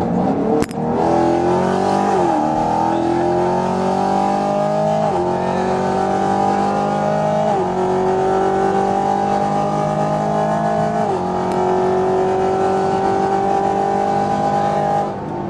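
A 2021 Chevrolet Camaro 1LE with bolt-on mods accelerating hard, heard from inside the cabin. The engine note climbs steadily in each gear and drops sharply at each of four upshifts of its 10-speed automatic, then falls away near the end as the driver lets off.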